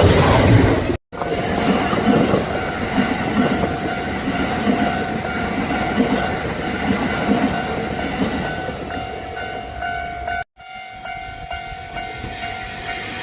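Kintetsu electric train running past on the track: a loud rumble of wheels over the rails with a steady pitched hum on top. The sound cuts out abruptly for a moment twice, about a second in and near the end.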